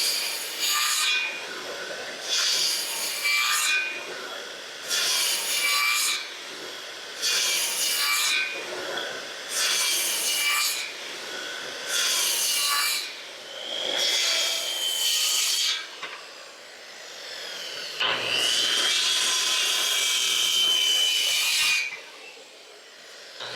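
A saw cutting through wood in a series of short strokes, roughly one every one to two seconds, with one longer cut of about four seconds near the end, as ladder rungs are cut to size.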